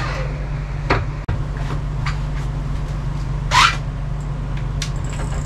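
A steady low hum with a few short clicks and knocks of gear being handled, and a brief swishing rustle about three and a half seconds in.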